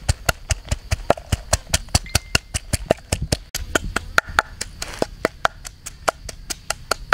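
Rapid, even knocking, about five sharp strikes a second, with a brief break about three and a half seconds in.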